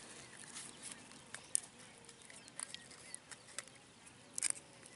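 Faint crackling of a dry leaf wrapper being peeled by hand off a steamed dumpling: scattered sharp little ticks over a low hiss, with a short cluster of crackles near the end.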